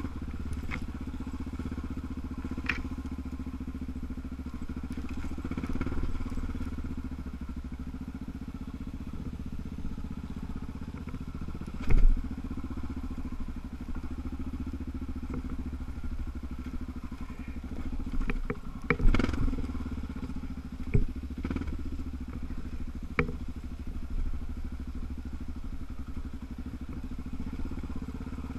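Single-cylinder four-stroke trail bike engine running at low, steady revs while riding a rough bush track, with knocks and clatter from the bike going over bumps and rocks. The two loudest thumps come about 12 and 19 seconds in.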